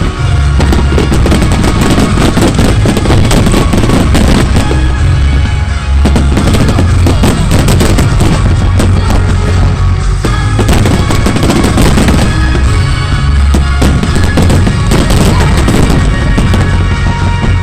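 A rapid barrage of aerial fireworks bursting, with densely packed cracks and low booms, over music.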